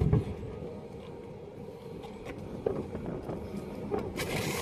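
Handling noise from a phone camera being adjusted: scattered light knocks and a brief rustle near the end, over a low steady rumble.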